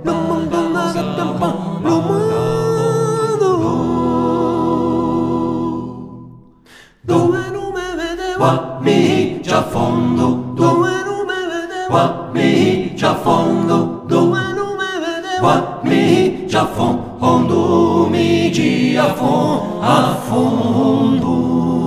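Vocal music: long held sung notes with vibrato fade out about six seconds in, and a second later a quicker, more rhythmic song with accompaniment begins.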